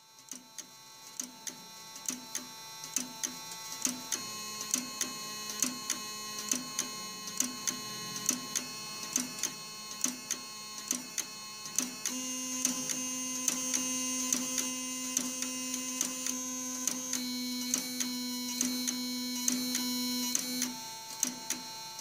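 Automatic Electric mechanical telephone howler running: its rotary switch and relays click about twice a second over a steady multi-pitch howl tone. The tone gets louder in steps and its mix of pitches changes several times as the switch cuts resistance out of the circuit, then it drops back near the end.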